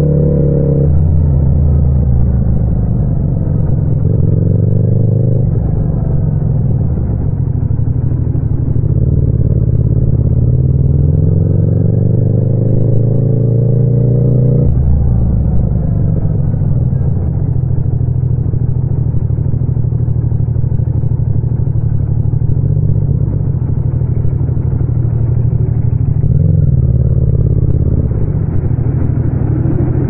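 Yamaha MT-07's 689 cc parallel-twin engine under way in city traffic. Its revs climb slowly and drop back sharply several times.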